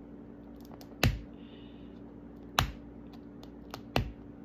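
Fingers picking at the seal of a hard plastic Mini Brands capsule ball, with three sharp plastic clicks about a second and a half apart and faint scratching ticks between them.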